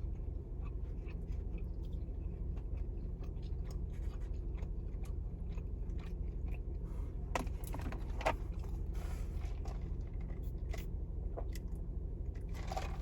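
Someone chewing and biting into a crispy grilled cheese sandwich: irregular small crunches and clicks, with a louder one a little over seven seconds in and another about eight seconds in, over a steady low hum.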